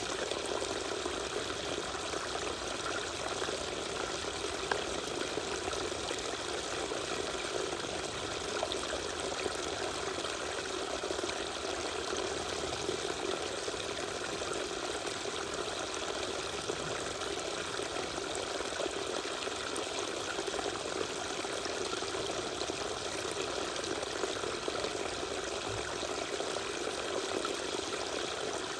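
Small waterfall splashing and pouring steadily, a constant rush of falling water with no change.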